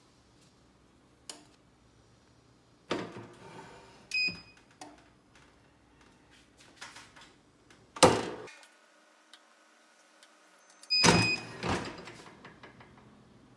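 Clamshell heat press being clamped shut and opened again: clunks and thuds from the handle and the heavy upper platen, the loudest about eight seconds in. The press's timer beeps twice, about four and about eleven seconds in.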